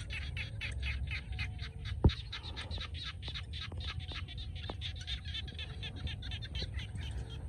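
Frogs calling in floodwater: a steady chorus of rapid pulsed croaks, several a second. A sharp click about two seconds in, with low wind rumble on the microphone throughout.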